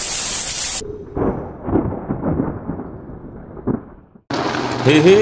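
Rolling thunder with several sharp cracks, muffled and fading away over about three seconds. Before it, a loud hissing rush of rain and water cuts off suddenly under a second in, and heavy rain hiss starts again near the end.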